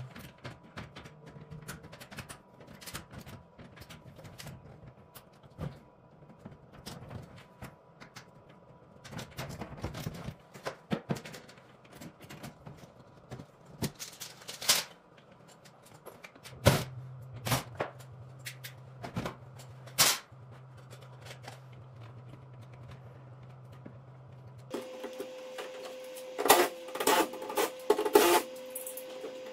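Plastic clicks, knocks and rattles as the front panel and filters of a ceiling-mounted one-way cassette air conditioner are unlatched and taken down. About 25 seconds in, a steady hum starts under fast clicking.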